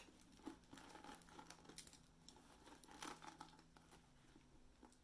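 Faint handling noise: soft clicks and rustles of fingers working the buckle off a rhinestone-covered boot, with a few small ticks scattered through.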